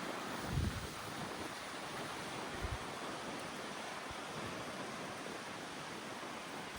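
Steady wind rushing across the microphone, with two brief low buffeting thumps from gusts, about half a second and two and a half seconds in.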